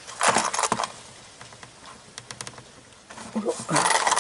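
Small plastic drill-bit case being handled and its clasp worked open, with clicks and rattles of plastic and loose bits. The rattling comes in a burst near the start and again near the end, with a few light ticks between.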